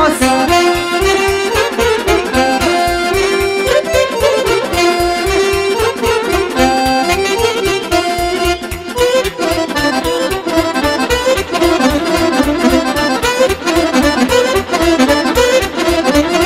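Romanian party folk music, an instrumental stretch with no singing: an accordion-led melody over a fast, even bass beat.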